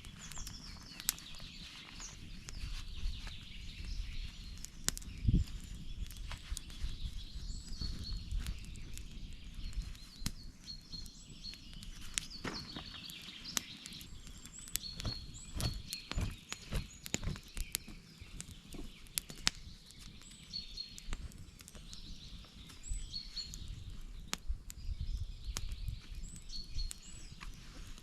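Small birds chirping in repeated short, high notes over scattered clicks and knocks and a low rumble.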